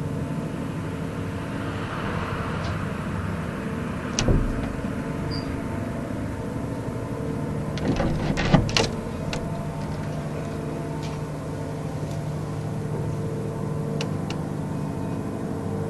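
A steady low droning hum made of several steady tones, of unexplained origin: airplane-like, but running on for hours without a break. A single thump comes about four seconds in, and a short cluster of clicks and knocks comes around eight to nine seconds in.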